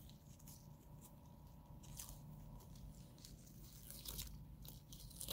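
Faint, intermittent crinkling of a transparent film IV dressing and its paper frame as they are peeled and pressed down by gloved hands.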